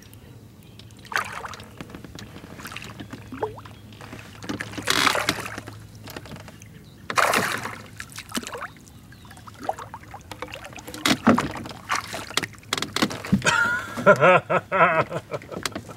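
Sounds from a small fishing boat: a steady low hum, with two loud splashy rushes about five and seven seconds in, then a quick run of knocks and clicks near the end, likely as a bass is fought in to the boat.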